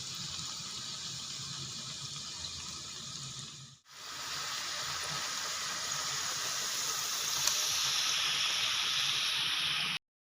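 Dough balls frying in hot oil: a steady sizzle that dips briefly about four seconds in, returns slightly louder, and cuts off abruptly near the end.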